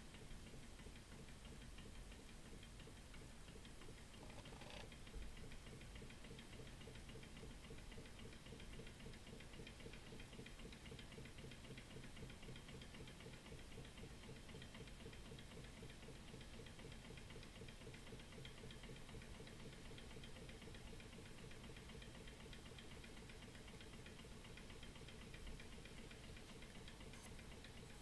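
Model flame-licker (vacuum) hot-air engine running: a faint, fast, even ticking.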